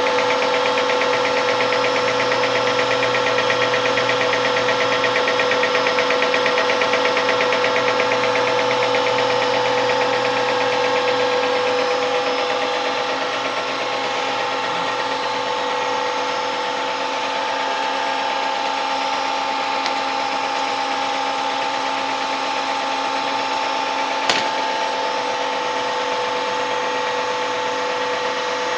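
Liebherr WS1 CNC gear shaper running as it cuts an internal gear: a steady machine whine over the fast, even stroking of the reciprocating cutter. The sound eases slightly about halfway through, and there is one sharp click near the end.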